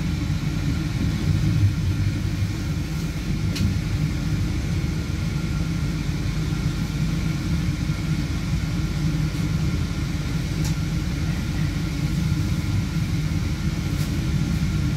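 Passenger train running on the track, heard from inside the carriage: a steady low rumble, with a few faint clicks.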